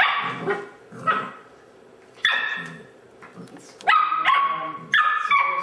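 Airedale terrier puppies play-fighting, giving short high-pitched barks and yips in a string of bursts, with a quieter gap about three seconds in.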